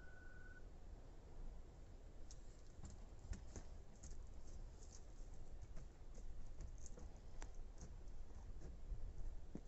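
Faint, irregular light clicks and a few soft knocks starting about two seconds in: a horse's hooves stepping over stony ground as it walks up.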